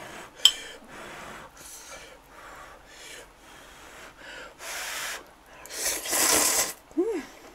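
Ramyeon noodles being slurped with chopsticks: a series of airy sucking slurps, the longest and loudest about six seconds in. A single sharp click about half a second in.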